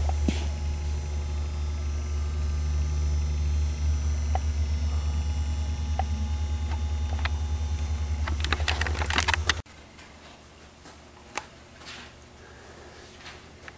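A steady low hum, with a quick run of clicks near the end of it, cuts off abruptly about ten seconds in. Quiet room tone with an odd click follows.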